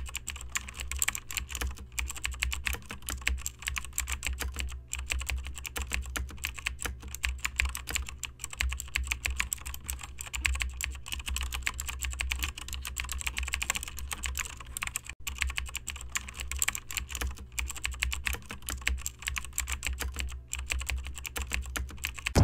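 Computer keyboard typing: a rapid, continuous run of keystrokes over a steady low hum.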